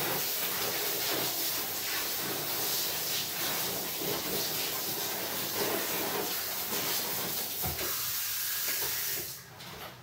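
Water spraying steadily from a handheld shower hose into a bathtub, rinsing the soap out of a soaked sleeping bag. The spray stops shortly before the end.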